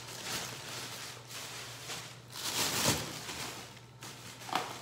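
Soft rustling and handling noises as items are moved about, with a louder rustle about two to three seconds in.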